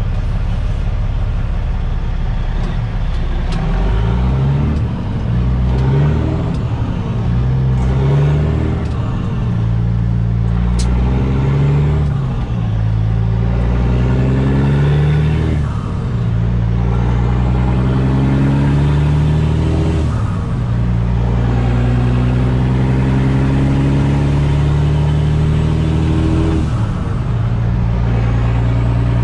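Caterpillar C15 diesel of a Kenworth T800 semi pulling away and accelerating up through the gears, heard inside the cab. The engine note climbs, dips at each gear change, and climbs again, seven or eight times.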